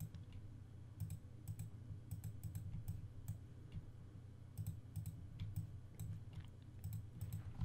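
Faint, irregular clicking of a computer mouse and keyboard, over a low steady hum.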